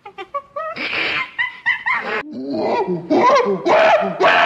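Ape calls: a gibbon's quick run of short hoots rising in pitch, then about a second in, loud chimpanzee screams and hoots, repeated over and over.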